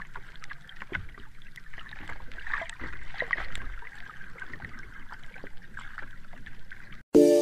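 Water sound effect: sloshing and bubbling water with many small pops and clicks. It cuts off abruptly near the end and loud music starts.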